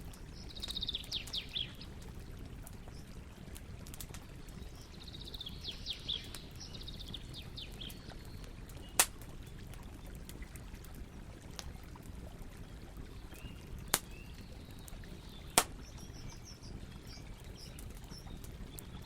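Campfire burning with a low steady background and three sharp pops of burning wood in the second half. Small forest birds chirp in quick high trills twice in the first half.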